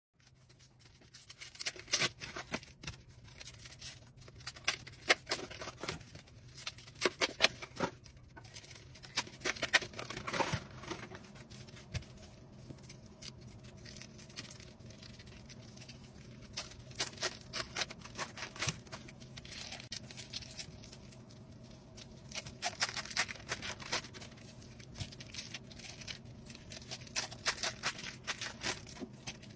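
Foil wrappers being peeled off blocks of cream cheese: crinkling and crackling handling noise in busy spells with quieter stretches between.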